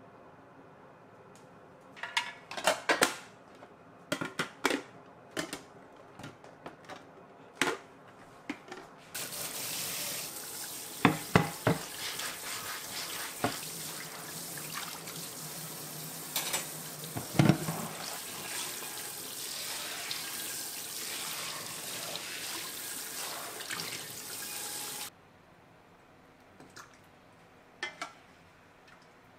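Kitchen tap running into a stainless-steel sink while a frying pan is scrubbed, the pan knocking against the sink a few times, loudest about two-thirds of the way in. Before the water comes on, a run of light clinks from a spoon against a glass bowl of carrots; the tap shuts off sharply and a couple of soft clicks follow.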